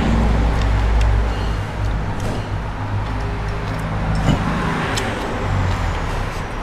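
Road traffic going by: a low vehicle rumble, strongest in the first second and a half and then easing off, with a few light clicks of a spoon against a bowl.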